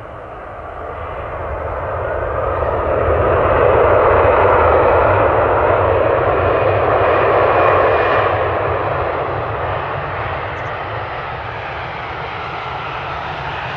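Jet engines of an Airbus A321 airliner passing by: a broad roar that swells over the first few seconds, peaks in the middle, then eases off to a steady, lower level.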